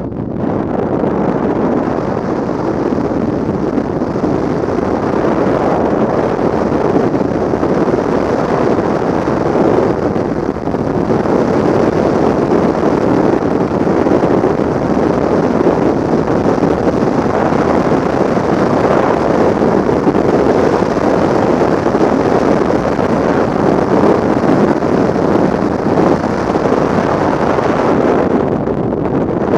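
Freefall wind rushing over a skydiving camera's microphone: a steady, loud rush of noise.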